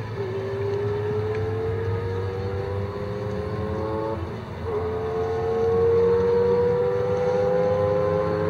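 The JUN BRZ's 2.4-litre V8 accelerating hard through the gears, its pitch climbing steadily in one gear, then an upshift about four seconds in and a second long climb in the next gear, growing louder after the shift.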